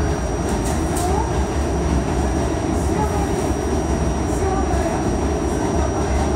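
Interior ride noise of an R68A subway car in motion: a steady low rumble of wheels on rail, with a few light clicks.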